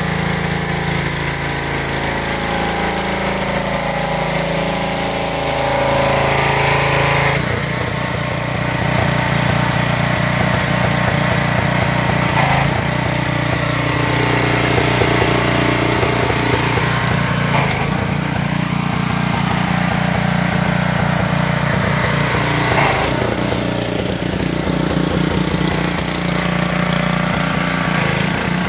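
Gas engine of a pressure washer running steadily, with the hiss of the high-pressure water jet striking concrete. The spray stops about seven seconds in and the engine runs on alone.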